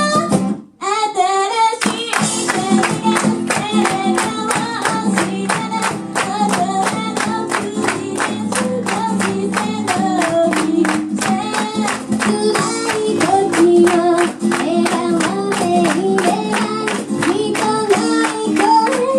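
Live acoustic performance of a pop song: sung vocals over a steadily strummed acoustic guitar. Less than a second in, the sound briefly cuts out.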